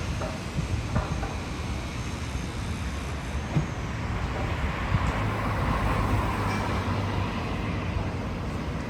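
Motor vehicle noise in road traffic: a steady engine and road rumble that swells for a few seconds past the middle, as if a vehicle draws close and passes.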